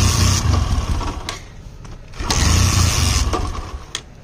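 Bajaj Discover 100 motorcycle engine being cranked by its electric starter in two bursts of about a second and a half each, with a third beginning at the very end. The engine turns over but doesn't catch: it won't start after water and ENO were poured into it.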